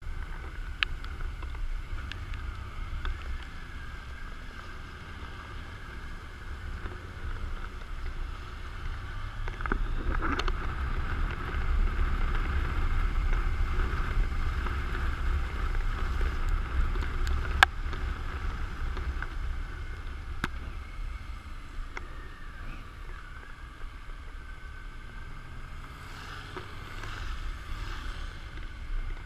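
Motorcycle riding on a wet road in the rain, heard from a helmet-mounted camera: low wind rumble on the microphone with motorcycle and tyre noise, louder for a stretch in the middle. A few sharp ticks stand out, raindrops striking the camera.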